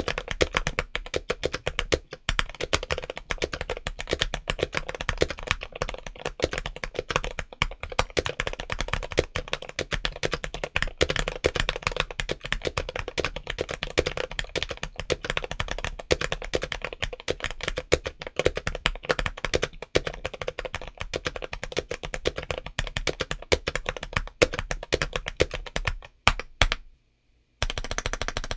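Fast, continuous typing on a modded James Donkey A3 75% mechanical keyboard with Gateron Orange switches and MT3-profile Skidata ABS keycaps: a dense, crunchy clatter of keystrokes. It stops for a brief silent gap near the end, then the key clatter resumes.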